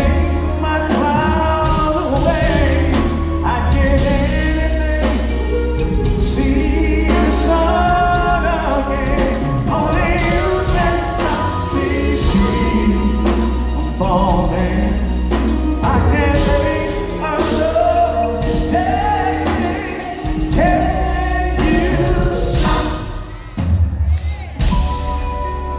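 Live band performance of an R&B ballad: a male singer's voice over keyboards and a heavy bass, with a brief dip in level near the end.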